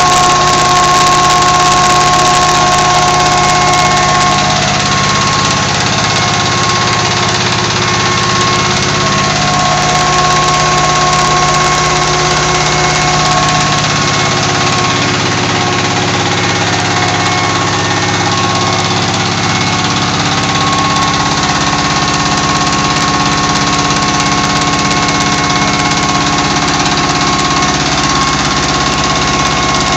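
A 25 HP Petter-type stationary diesel engine running at full speed and driving an atta chakki (stone flour mill) by belt: a loud, steady mechanical drone with a constant whine over the noise of the mill grinding.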